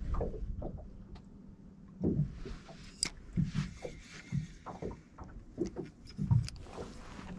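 Small waves slapping irregularly against the hull of a small boat in low, dull knocks, with two sharp clicks about three and six and a half seconds in.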